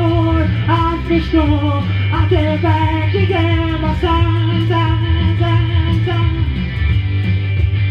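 Rock song with electric guitar and a voice singing.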